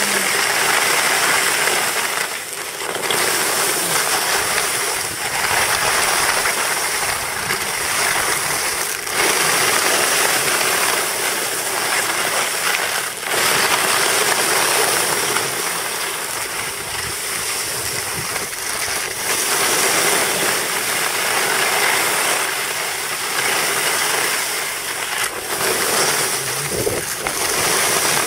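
Skis scraping and hissing over firm, packed snow during a run, a steady rush that swells and eases every few seconds as the skier turns.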